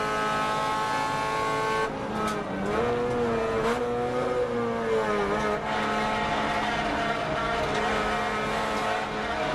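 Car engine heard from inside the cabin on a race circuit, holding steady revs at first. About two seconds in, the note drops, then rises and wavers as the car goes into a corner, with a few sharp clicks.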